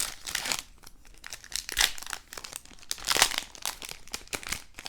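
Foil wrapper of a Panini Prizm football card pack crinkling and tearing as it is ripped open and handled, in a few bursts of crackling.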